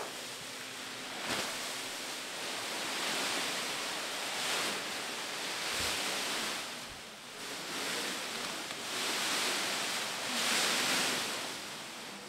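Thin plastic bag sheeting rustling and crinkling as it is pulled and gathered up by hand, coming in repeated swells every second or two.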